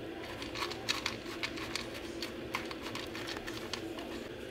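Small dog eating dry kibble from a plastic feeder bowl: irregular crunches and clicks of kibble, busiest in the first couple of seconds and thinning out near the end, over a steady faint hum.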